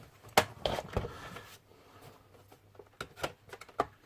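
A few short clicks and knocks with a little rustling: a cluster about a second in and another around three seconds in.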